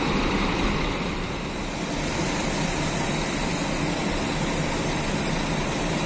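Large coaches' diesel engines idling and running in a bus yard, giving a steady engine noise with no distinct events.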